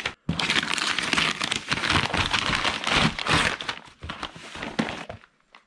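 Brown paper packaging being torn and crumpled by hand off a cardboard box, a dense rustling and ripping that dies away about five seconds in.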